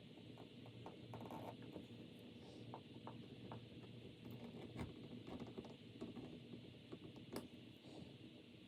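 Utility knife blade scoring wood around a door strike plate: faint, irregular small scratches and clicks.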